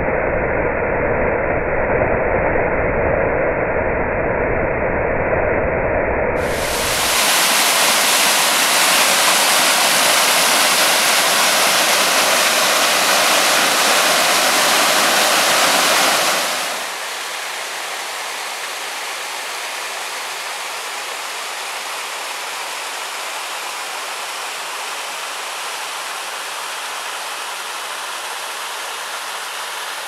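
Rushing water from a waterfall pouring over rock: a steady, loud rush with no pauses. It sounds dull and muffled for the first six seconds, then turns brighter and louder, and drops to a softer, thinner rush from about sixteen seconds on, where the footage moves to a smaller cascading creek.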